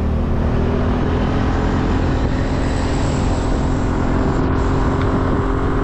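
A vehicle driving along a road: its engine runs at a steady pitch under a continuous rumble and rushing noise.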